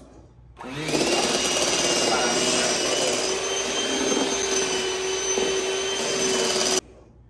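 Electric mixer beating egg-white meringue: the motor switches on suddenly about half a second in, its whine rising briefly to a steady high speed, then cuts off suddenly near the end.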